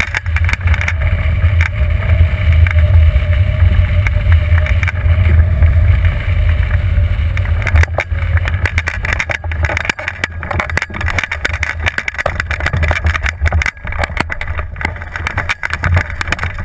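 Wind buffeting the microphone of a wing-mounted camera on a hang glider flying low in to land: a loud, steady rush with heavy low rumble and a faint steady tone in it. From about eight seconds in it turns choppier and gustier as the glider slows toward touchdown.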